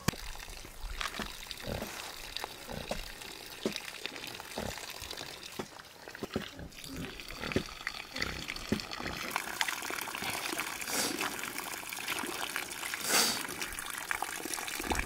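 Scattered light knocks and taps, then water running from an outdoor pipe spout for the second half, with hands swishing rice in a steel bowl as it is rinsed under the stream.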